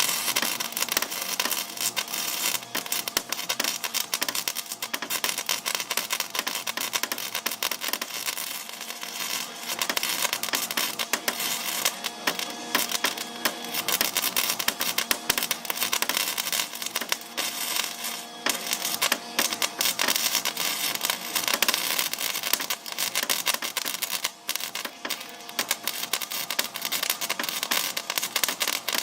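MIG welder crackling steadily as rebar is welded onto steel drag-bar teeth, with a few brief breaks between beads.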